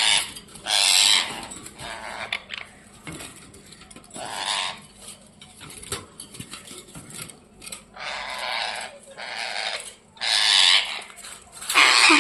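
Ringneck parrot giving repeated harsh, raspy screeches, each under a second, with short gaps between: angry squabbling calls.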